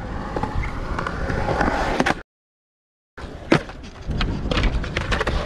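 Skateboard wheels rolling on a skatepark's concrete with scattered clacks, cut off by a dead-silent gap about two seconds in, then a single loud clack of the board a little past the middle, followed by more rolling and clicks.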